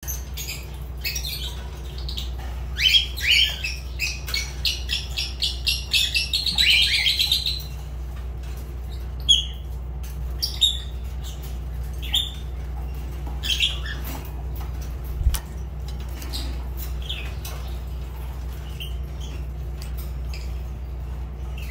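Fischer's lovebirds chirping and squawking: a fast run of sharp, high chirps a few seconds in, then single chirps every second or two. A steady low hum runs underneath.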